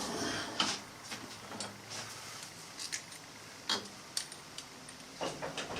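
Light metal clicks and taps, a handful spread irregularly, from tools and a small metal workpiece being handled at the machine.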